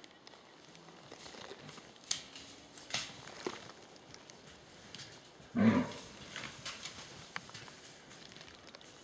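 Red deer stag in the rut giving one short roar a little past halfway. A few sharp cracks of twigs and brush come before it.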